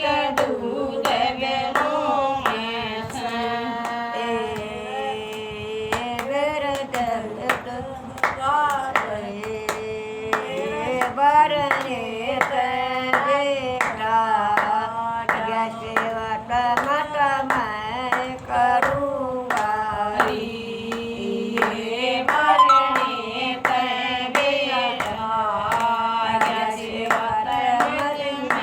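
A Haryanvi bhajan sung unaccompanied, with hand claps keeping a steady beat of about two a second.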